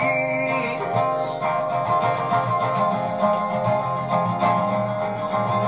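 Acoustic guitar being strummed, its chords ringing steadily; a held sung note trails off about half a second in.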